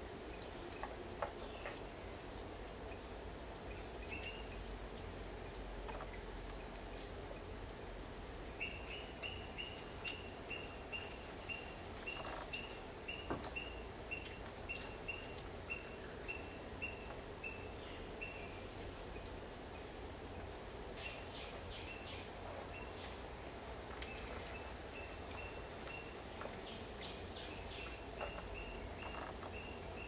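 Steady high-pitched insect drone, with a small bird repeating a short chirp about twice a second for about ten seconds, then again in the last few seconds.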